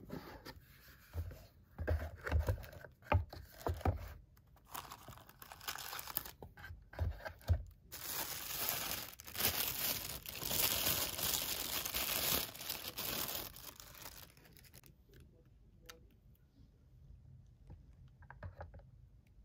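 Unboxing by hand: a cardboard box and its lid handled with light bumps, then about five seconds of paper rustling and crinkling in the middle, then quieter handling as the sunglasses are lifted out.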